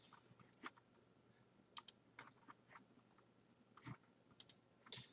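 Near silence broken by about eight faint computer mouse clicks, scattered unevenly, some in quick pairs.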